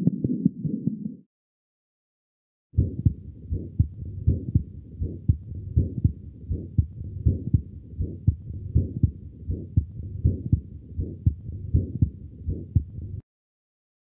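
Heart sounds recorded with a Thinklabs One digital stethoscope: a regular lub-dub heartbeat with a murmur between the beats, from a child's restrictive mid-muscular ventricular septal defect. A denser heartbeat with a murmur, from a restrictive apical muscular ventricular septal defect, cuts off about a second in. There is a short silence before the second recording starts, and it stops shortly before the end.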